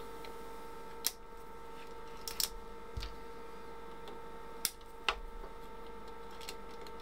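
A handful of light clicks and taps from small parts and tools being handled on a workbench, one a duller knock about three seconds in, over a steady faint high whine.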